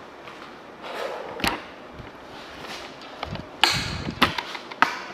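A few scattered knocks and thumps, with the loudest, sharpest ones bunched together about three and a half to five seconds in.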